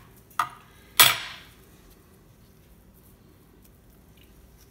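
Metal cutlery set down on a wooden cutting board: a light knock, then a louder clatter about a second in.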